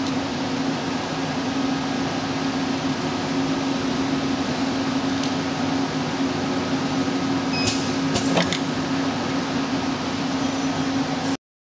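Semi-automatic desktop pouch-cell stacking machine running: a steady mechanical hum with a low drone. There are a few sharp clicks about eight seconds in, and the sound cuts off abruptly near the end.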